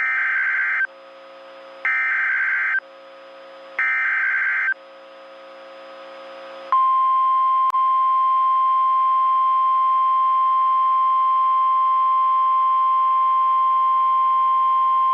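Emergency Alert System tornado warning opening: three short bursts of screeching digital header data about two seconds apart, the SAME code that tells receivers what warning this is and where it applies. They are followed by the long, steady, single-pitched 1050 Hz warning alert tone, which begins about seven seconds in.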